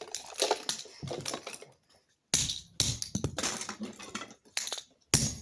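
Plastic and circuit-board pieces of a smashed iPod docking radio clattering and crunching as they are handled and broken, in irregular bursts of clicks with a short pause about two seconds in.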